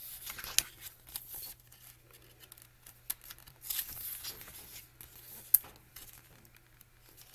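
Pages of a book being turned one after another: papery swishes and flicks, with a couple of sharp snaps, about half a second in and again after five seconds.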